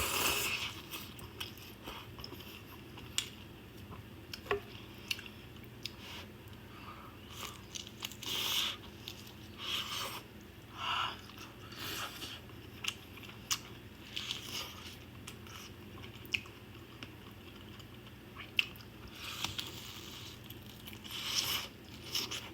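Close-miked mukbang eating: a person biting and chewing spicy noodles and side dishes, in irregular noisy bursts with sharp little clicks and crunches between quieter stretches.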